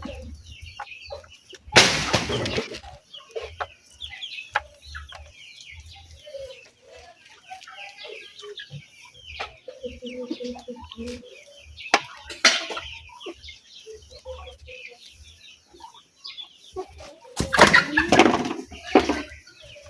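Chickens clucking and chirping throughout, with a few louder, noisy bursts about two seconds in and again near the end.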